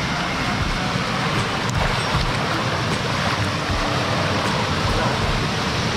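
Rushing water of a mountain stream running high after a flood, a steady unbroken hiss.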